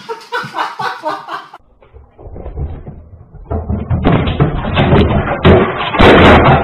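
Loud, distorted thumping and crashing through a security camera's microphone as a flat-screen TV is knocked over off its stand, starting about three and a half seconds in.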